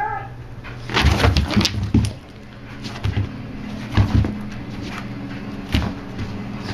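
A Boston terrier moving and scuffling right up against the camera: a flurry of knocks and scuffles about a second in, then single knocks near four and six seconds, over a steady low hum.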